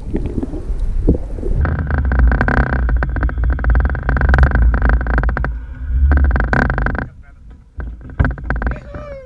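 Boat motor running, with many sharp knocks and clicks over it.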